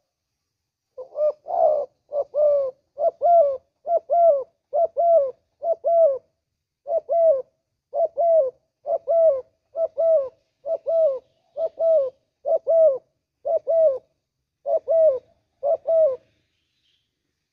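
Spotted dove cooing: a steady run of short coos, each a quick two-part note, repeated a little faster than one per second. The run starts about a second in and stops shortly before the end.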